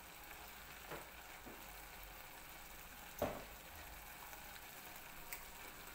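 Faint sizzling of fried omena and freshly added coconut cream heating in a pot, with a few soft knocks, the loudest about three seconds in.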